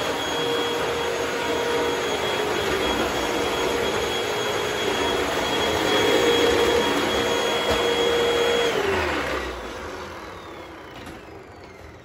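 Hoover WindTunnel 2 upright vacuum cleaner running steadily with a high motor whine. About three-quarters of the way through it is switched off, and the whine falls in pitch and fades as the motor winds down.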